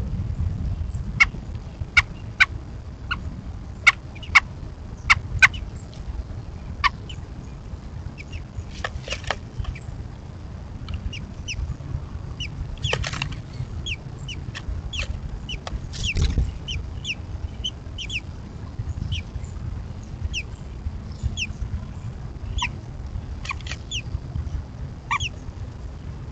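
American robins at the nest calling in short, sharp notes, repeated irregularly: clicking notes through the first six seconds or so, then quick falling chirps, over a steady low rumble.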